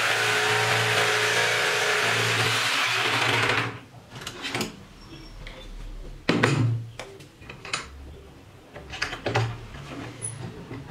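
Corded electric jigsaw running steadily as its blade saws through a wooden board along an aluminium guide track; the sawing stops abruptly about a third of the way in. Then scattered knocks and clacks as the saw and the metal track are lifted and handled on the wooden bench, the loudest knock a little past halfway.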